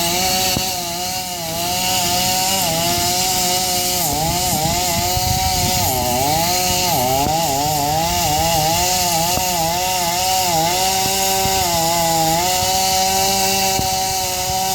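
Chainsaw running at high revs while cutting a burnt pine. Its engine pitch dips and recovers again and again as the chain bites into the wood, then holds steady near the end.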